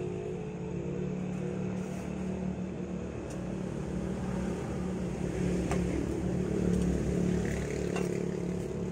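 An engine running steadily with a low drone, with a few light clicks over it.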